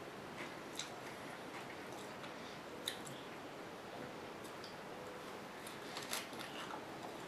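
A person chewing crisp romaine lettuce from a chicken Caesar salad: faint, scattered crunches and clicks, the sharpest about three seconds in and a small cluster around six seconds.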